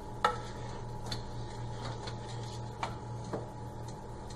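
Wooden spatula stirring thick gravy in a metal pot, knocking against the pot four times, the first knock the loudest.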